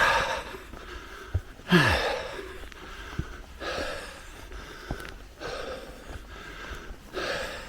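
A man breathing hard from the exertion of walking up a steep hill, a breath about every two seconds.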